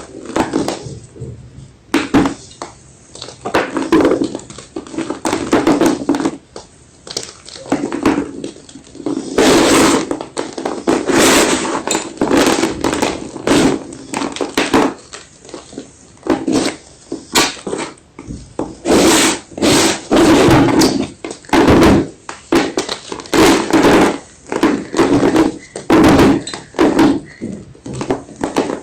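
White gym chalk being crunched: a continual run of dry, crisp crunches, about one to two a second, some clusters louder than others.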